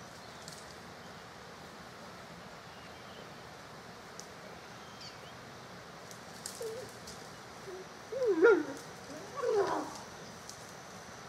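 An animal calling: two short, loud, wavering calls about eight and nine and a half seconds in, the second sweeping higher, with a few fainter calls shortly before.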